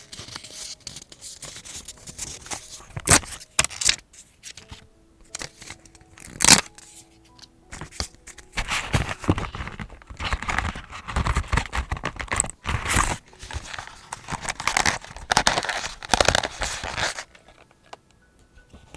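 Paper being handled and torn for journaling: a few sharp taps and clicks in the first seven seconds, then a long stretch of rustling, tearing paper that stops about two seconds before the end.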